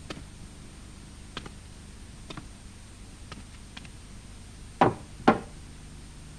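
A few faint, scattered taps, then two sharp knocks about half a second apart near the end, over a steady low hum.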